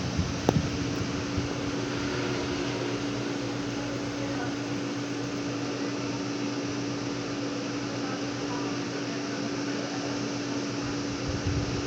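A steady mechanical hum, like a small motor or fan running, with one constant tone and an even hiss and no change in level.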